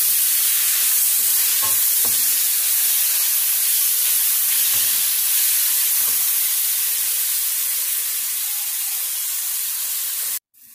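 Chopped tomatoes and onions sizzling in hot oil in a steel kadai while being sautéed and stirred with a wooden spatula, with a few soft knocks of the spatula against the pan. The sizzle cuts off suddenly near the end.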